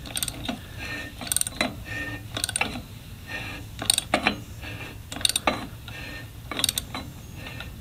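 Socket ratchet wrench on the flywheel nut of a Honda GVC140 mower engine, clicking in short bursts about once a second as it is swung back and forth, turning the stiff, formerly seized engine over by hand.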